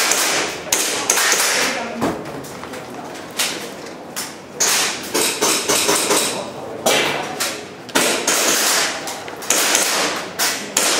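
Airsoft pistol shots fired in a timed practical-shooting course: sharp cracks spaced irregularly, some in quick pairs.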